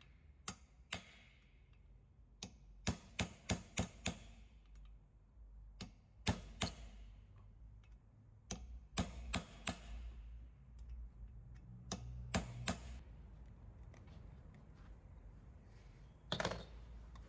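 Sharp metallic taps and knocks in irregular groups, some in quick runs of four or five, each ringing briefly: tool work on a Volkswagen Tiguan's propshaft centre bearing assembly. A short scraping rustle comes near the end.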